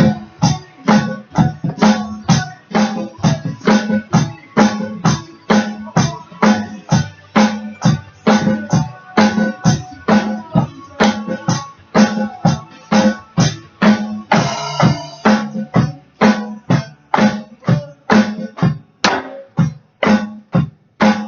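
Drum kit played over a recorded rock song with guitar, in a steady beat of about four hits a second.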